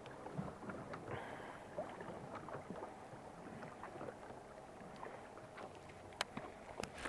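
Small waves lapping against a fishing boat's hull, with light wind on the microphone and a few faint sharp clicks, the sharpest about six seconds in.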